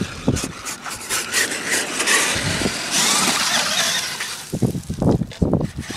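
Traxxas E-Maxx electric RC monster truck driving onto a woodchip pile, its spinning tyres digging in and throwing up chips as a loud hiss through the middle. A run of low thumps follows near the end.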